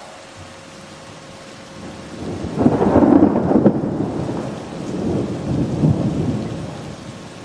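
Thunder rolling over steady rain: the low rumble builds about two seconds in, peaks, eases, then swells a second time before dying away near the end.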